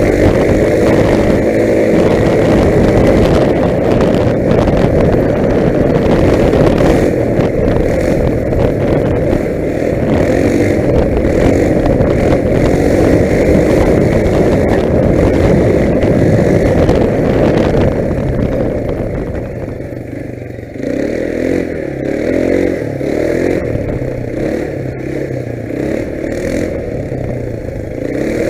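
Quad bike (ATV) engine running under way, its pitch shifting with the throttle. About two-thirds of the way through the engine eases off, then picks up again.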